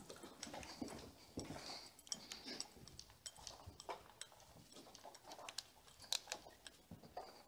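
Faint, irregular light clicks and taps of footsteps and carried gear rattling as a player moves slowly, with a sharper click about six seconds in.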